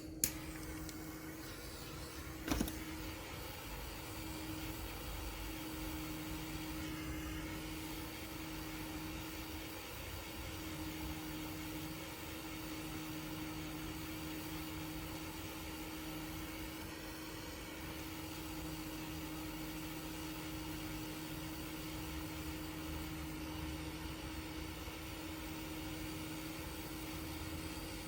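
Butane piezo-ignition micro torch: a sharp click at the start and another about two and a half seconds in, then the flame burning with a steady hiss.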